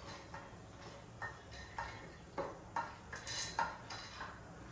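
Metal spoon clinking and scraping against a steel bowl as soaked moong dal is pushed out of it into a steel mixer-grinder jar: about eight short, irregular clinks.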